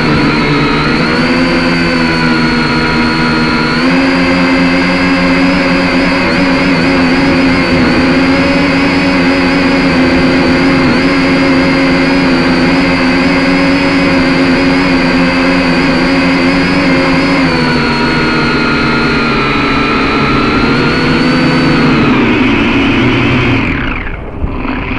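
A drone's electric motors and propellers whining steadily as it flies, recorded on the drone itself. The pitch steps up about four seconds in as it climbs and settles lower again later on, with a brief dip in the sound near the end.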